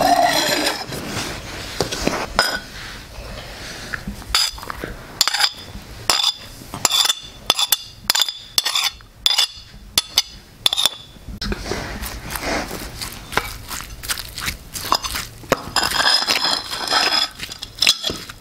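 Spoon and ceramic dishes clinking sharply again and again, each clink ringing briefly. From about the middle, a spoon stirs sliced raw onions into a spice paste in a ceramic bowl, a steadier mix of scraping, light clinks and wet crunching.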